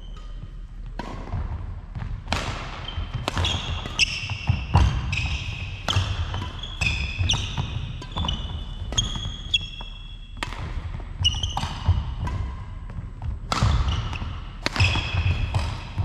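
Badminton singles rally: rackets hitting the shuttlecock with sharp cracks, trainers squeaking briefly on the court floor and feet thudding as the players move, echoing in a large sports hall.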